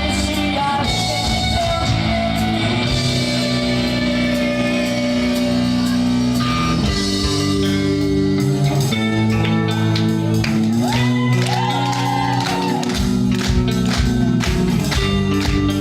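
Rock band playing live: electric guitar, bass and drums, with drum hits coming thicker in the second half.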